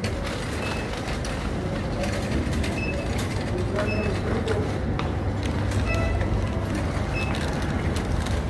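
Wire shopping trolley rolling and rattling across a tiled shop floor as it is pushed, a steady low rumble. Short high tones sound now and then above it.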